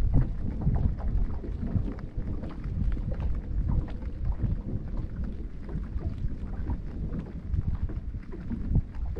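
Raindrops tapping on a GoPro camera's housing: many irregular taps over a low, uneven rumble of wind on the microphone.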